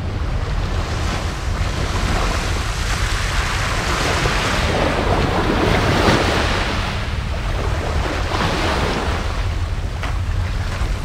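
Sea waves washing onto the beach, swelling to a peak around the middle and easing off, with wind rumbling on the microphone.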